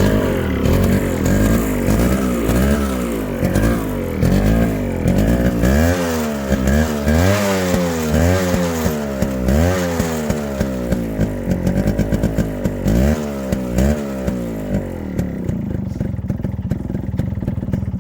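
1998 Yamaha RX135's single-cylinder two-stroke engine running and being revved over and over, its pitch rising and falling a dozen or so times before it settles to steadier running near the end. The engine has just been rebuilt, with the connecting-rod shake corrected.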